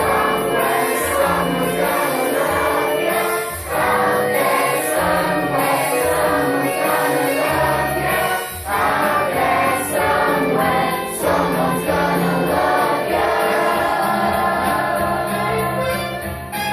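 A chorus of voices singing a musical-theatre song together over instrumental accompaniment.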